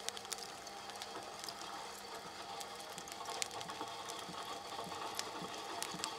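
Homemade rotisserie drive turning: a wooden cable-spool wheel and spoked belt pulley rotating on their shaft, with irregular light clicks and ticks from the mechanism.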